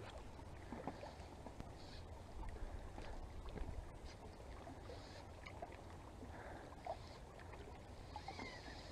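Faint sounds of water moving and lapping, with a few small ticks, over a low steady rumble.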